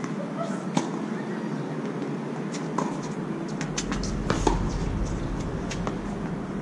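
Tennis ball hit back and forth in a rally on a hard court: sharp racket strikes and ball bounces, a few seconds apart. A low traffic rumble comes in about halfway through.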